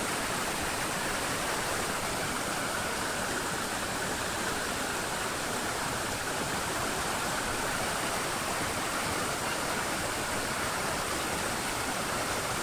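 Fast river water rushing over rocks in rapids, a steady, unbroken rush.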